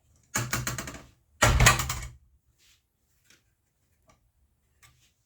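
Sewing machine being set down onto its plastic rear cover: two short clattering knocks of plastic about a second apart, followed by a few faint clicks.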